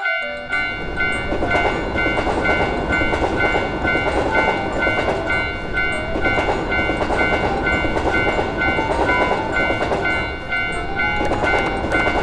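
A train rumbling steadily through a level crossing while the crossing's warning bell rings in a steady, even repeat of two high tones. A few short rising pitched notes sound over it.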